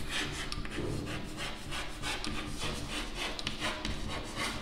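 Chalk scratching on a chalkboard as a word is written by hand: a run of short, irregular scraping strokes.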